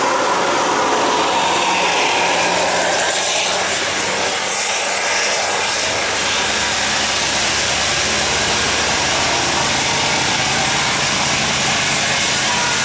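Tour bus engine running with heavy road noise, a steady dense rumble and hiss. A multi-tone telolet horn dies away in about the first second.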